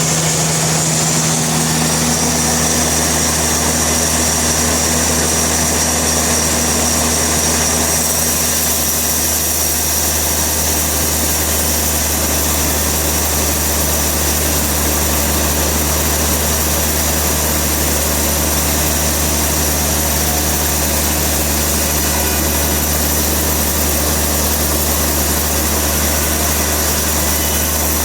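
Sawmill machinery running steadily with a constant low hum and no cutting strokes.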